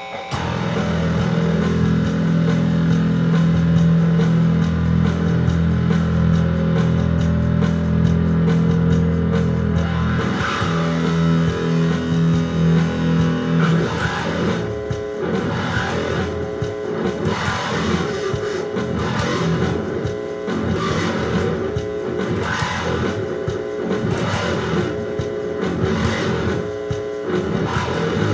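Rock music with guitar and bass. Held low guitar chords fill the first half, and a steady beat comes in about halfway through.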